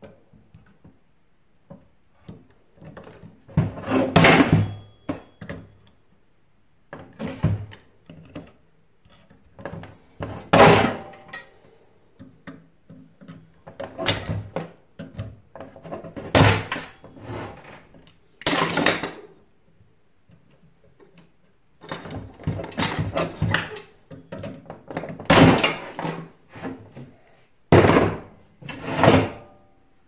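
Irregular knocks, clunks and clatter from handling a disassembled microwave oven's metal casing, wiring and parts with hand tools, a burst every couple of seconds with quiet gaps between.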